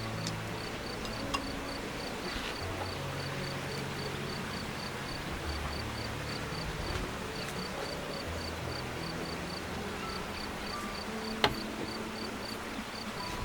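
An insect chirping in a steady high pulse, about four chirps a second. Soft background music plays underneath, and a single sharp click comes near the end.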